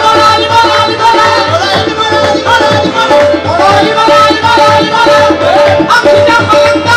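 Live qawwali: singers over harmoniums, tabla and hand-clapping, with keyboard and guitars in the ensemble. A short high note repeats evenly through the second half.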